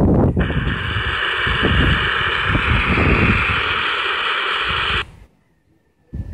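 Shortwave static and hiss from a Grundig G2 Reporter portable radio's speaker as it is tuned near 17 MHz, with no station coming through, and wind buffeting the microphone. The hiss cuts off suddenly about five seconds in.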